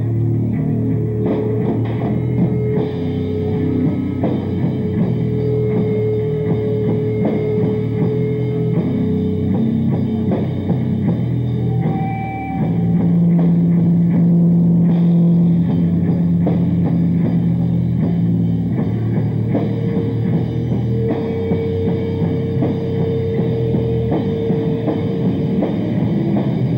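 Live sludge metal band playing loud: distorted electric guitar and bass over a drum kit. About twelve seconds in, the playing drops briefly, then a low note is held for several seconds before the band carries on.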